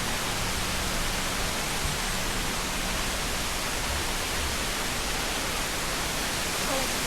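A waterfall's water rushing: a steady, even noise that does not change.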